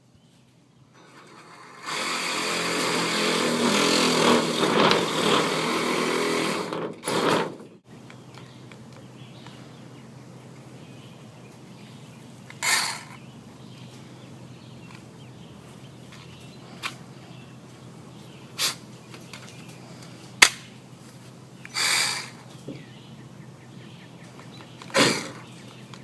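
Battery-powered saw cutting sheetrock for about five seconds, then stopping short, with a few brief half-second bursts later on. The saw's battery is running low.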